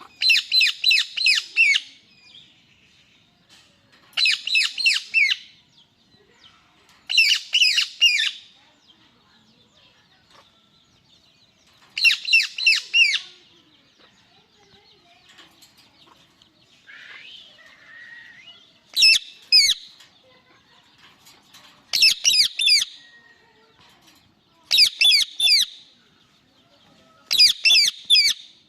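Male Indian ringneck parakeet calling in bouts of rapid, repeated high screeches, five or six to a bout, about every three seconds, with a fainter, lower call between them partway through. The uploader calls this its angry voice.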